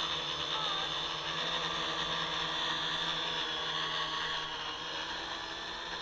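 XK X350 quadcopter's four motors and propellers whirring steadily as it hovers and flies at low height, a high steady whine over a motor hum.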